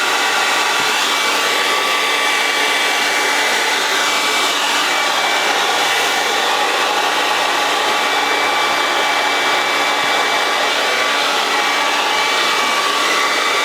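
Revlon Ionic Ceramic 1875-watt handheld hair dryer running steadily, blowing into a soft bonnet hood attachment. A steady rush of air with a faint high whine.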